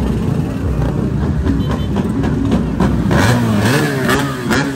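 Motorcycle engines running and revving, their pitch rising and falling, busier and louder in the second half.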